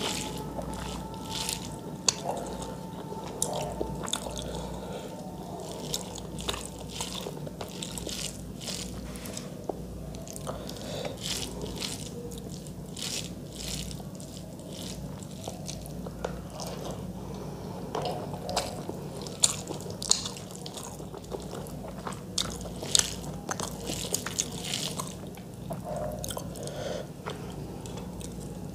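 Close-miked eating sounds: mouth smacks, wet chewing and biting of rice and chicken curry eaten by hand, as short sharp clicks scattered throughout over a steady low hum.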